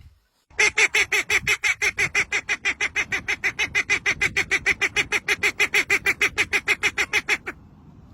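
A bird calling in a fast, even series of short notes, about seven a second, kept up for about seven seconds and then stopping.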